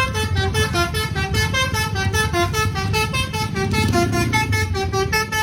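Indonesian bus 'telolet' multi-tone air horn playing a fast jingle of short notes that step up and down, over the bus engine's low rumble.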